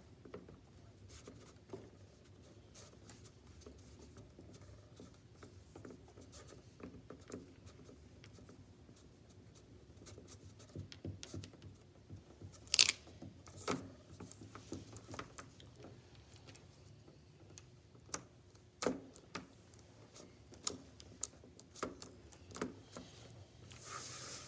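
Faint handling noise from hands pressing and smoothing modelling clay on a sheet of paper on a table: light rustles and scattered small taps, the sharpest about 13 seconds in, over a low steady room hum.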